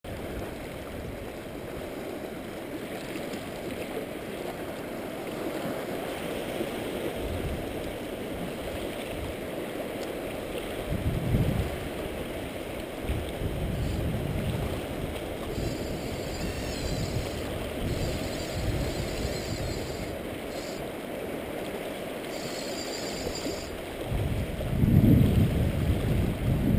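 Sea water washing and lapping against shore rocks, with wind gusting on the microphone, heaviest near the end.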